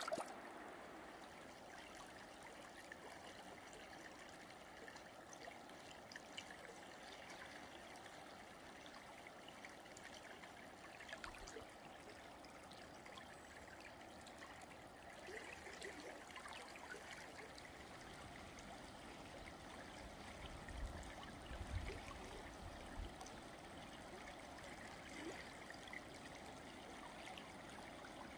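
River water flowing, a faint, steady rush. A brief splash right at the start as a hand stirs the water, and a few low bumps about three quarters of the way through.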